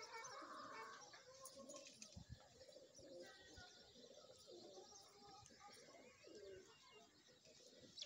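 Faint cooing of domestic pigeons, repeated throughout, with a few short high chirps.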